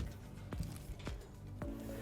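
Quiet background music, with a few faint clicks.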